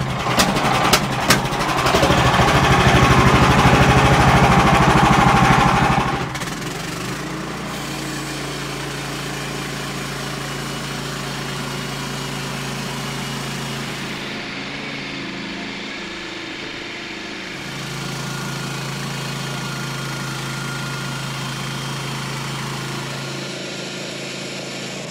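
Gas engine of a portable bandsaw sawmill running as the blade cuts a board from a log. It is louder for about the first six seconds, then runs at a steady, lower level.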